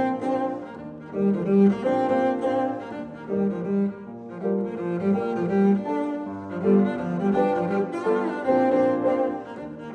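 Double bass played with the bow, a moving melodic line of sustained notes high on the instrument, accompanied by grand piano.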